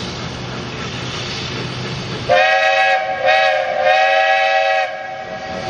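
Steam whistle of a small Vulcan steam locomotive blowing about two seconds in: a loud, steady tone sounded in three blasts over about two and a half seconds, the last the longest, then fading to a faint lingering note.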